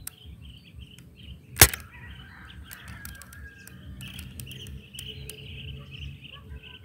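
A single sharp shot from a spring-powered AR-15-style airsoft rifle about a second and a half in, over steady chirping in the background.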